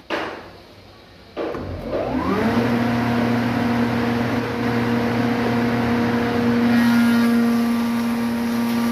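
A spindle moulder (wood shaper) motor starts up about a second and a half in, its whine rising in pitch as it spins up, then runs at a steady hum. Near the end a rougher hiss of cutting joins in as a board is fed past the cutter.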